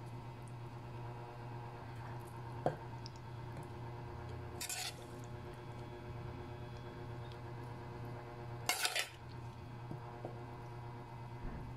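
A metal spoon scraping and knocking against cookware as chickpeas are spooned onto chicken in an enamelled cast-iron pot: two short scraping bursts, about halfway and about three-quarters through, the second the loudest, with a faint click earlier. A steady low hum runs underneath.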